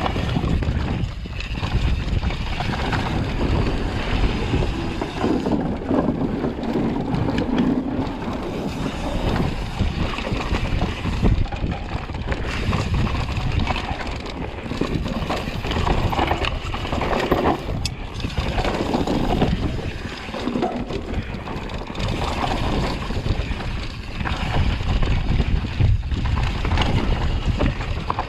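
Wind buffeting the microphone over the rumble and rattle of a mountain bike running over rough dirt trail, with irregular knocks from bumps.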